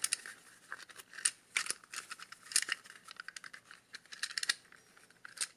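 Small plastic Pip-Boy 2000 Mk VI kit part being worked by hand: a run of quick, irregular clicks and clacks as its pop-up mechanism is tried out.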